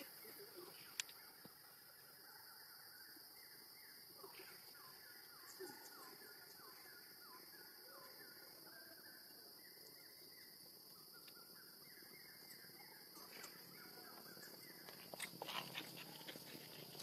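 Faint forest ambience: a bird calling in quick runs of short falling notes over a steady high-pitched drone. A few clicks and rustles come near the end.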